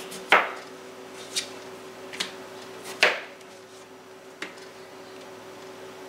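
Chef's knife chopping boiled russet potatoes into chunks, the blade knocking down through the potato onto a silicone cutting mat. Five sharp knocks at uneven intervals, the first and fourth the loudest, over a faint steady hum.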